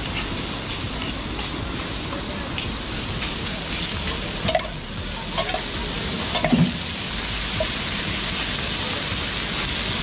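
Masala-coated fish frying in oil on a large flat iron griddle, a steady sizzling hiss. A few short metallic knocks come about halfway through.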